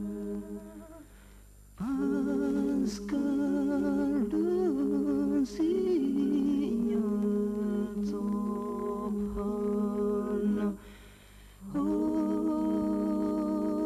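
Solemn background music of wordless humming voices holding long notes with vibrato. It drops away briefly twice, about a second in and again near the end.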